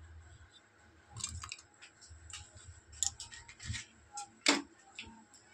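Garlic cloves and a green chilli dropped into a steel mixer jar: a scattering of light clicks and taps, the loudest about four and a half seconds in.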